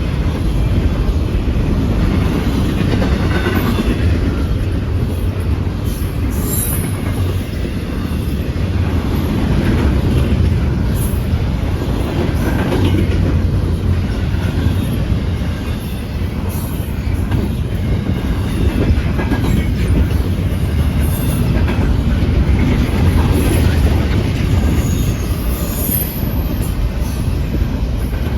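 CN Q139 freight train's cars rolling past close by: a loud, steady rumble of wheels on rail, with clicking and brief high wheel squeals every few seconds.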